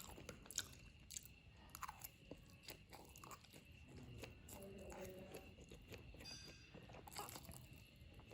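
Close-miked chewing of spicy Korean-style fried noodles: faint, scattered wet mouth clicks and soft crunches.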